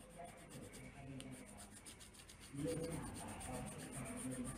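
Coloured pencil scratching on paper in quick, short back-and-forth shading strokes. Faint background voices come in about two and a half seconds in.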